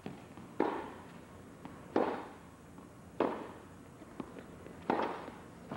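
Tennis balls struck by racquets in a baseline rally: four sharp hits about a second and a half apart, each echoing in an indoor arena.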